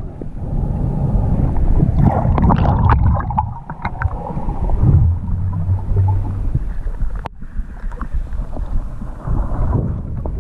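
Muffled underwater rumble and water movement picked up by a camera in its waterproof housing, with a cluster of small clicks and knocks between about two and four seconds in and one sharp click a little past seven seconds.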